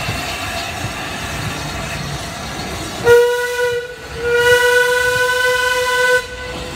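Steam locomotive whistle giving two blasts, a short one then a longer one, over the running noise of a passing train.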